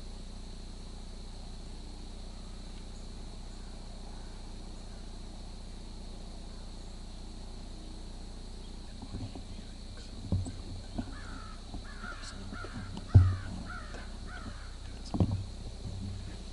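A crow cawing in a quick series of about seven harsh caws, a little over two a second, starting past halfway. A few dull low thumps fall around it, the loudest in the middle of the cawing.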